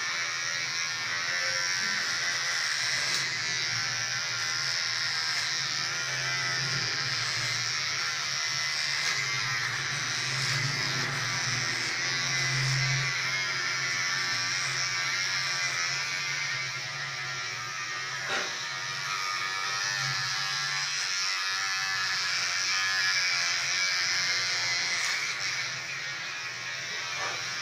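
Electric hair trimmer buzzing steadily as it shaves hair from the back and sides of the head.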